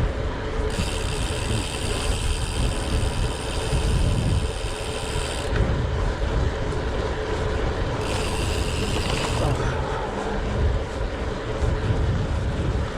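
Gravel bike riding on a gravel track: tyres crunching and wind rumbling on the microphone, with the rear hub's freewheel buzzing as the rider coasts. The buzz comes twice, for several seconds starting about a second in, then briefly near two-thirds of the way through.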